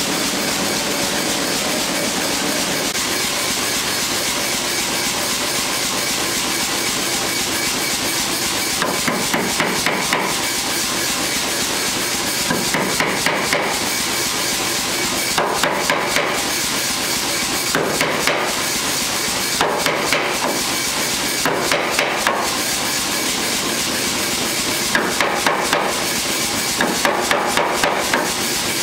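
Sahinler pneumatic power hammer running steadily, then from about nine seconds in striking a red-hot O1 tool-steel bar in eight short bursts of quick blows, drawing out the punch.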